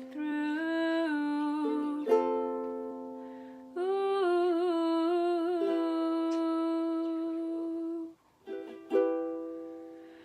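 A voice singing long held notes, with a ukulele strummed about two seconds in and again near the end, each strum ringing out and fading. The voice breaks off briefly shortly before the second strum.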